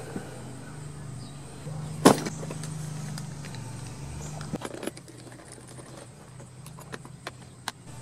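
Clicks and knocks of hands working at a push mower and its tools, with one sharp knock about two seconds in and a few light clicks near the end, over a steady low hum.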